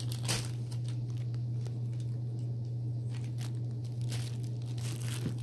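A steady low hum, with a few faint crackles of a plastic squishy bag being handled.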